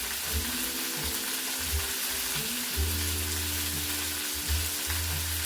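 Food sizzling steadily in a hot frying pan, a constant hiss, with music playing underneath.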